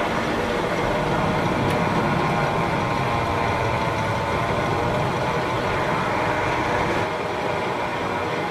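Zip-line trolley running fast along a long steel cable: a steady rolling whir mixed with the rush of air, easing slightly about seven seconds in.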